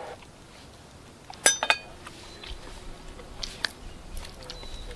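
Metal camp cookware clinking: one sharp ringing clink about one and a half seconds in, then a few lighter clicks about halfway through.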